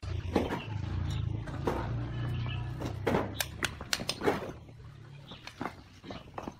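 Steel bricklaying trowel tapping and scraping on bricks and mortar, as a series of sharp irregular taps. A low rumble runs under the first half and then fades out.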